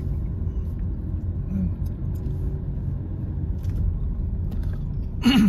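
Steady low rumble of a car driving slowly, heard from inside the cabin, with a faint steady hum above it. A short vocal sound comes near the end.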